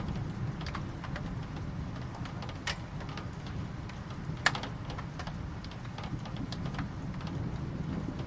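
Rain falling, with scattered single drops ticking sharply on a hard surface over a steady low rumble; one drop about four and a half seconds in is louder than the rest.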